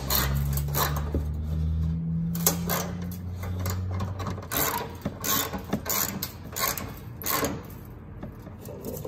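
Ratchet wrench with an extension clicking through a series of short strokes, about one or two a second, turning a headlight mounting bolt. A steady low hum runs under the first four seconds.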